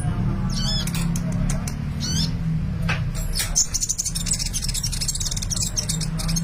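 A sunbird singing: a few quick, curling high chirps, then from about halfway a fast, continuous high twittering song. A steady low hum runs underneath.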